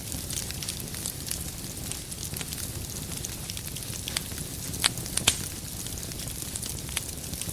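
Wood fire crackling steadily over a low rumble, with many small snaps and two sharp pops close together about five seconds in.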